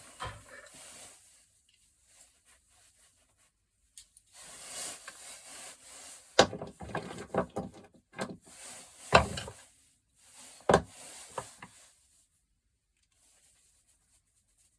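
Brass gas-valve parts from a gas stove being handled and taken apart by hand, with scraping and rubbing and several sharp knocks of metal on metal or on the work surface. The knocks are loudest about six and a half, nine and eleven seconds in, and the handling stops about twelve seconds in.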